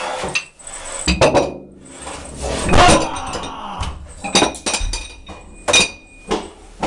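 A run of irregular sharp metallic clinks and knocks, some ringing briefly, with a louder rattling burst about three seconds in.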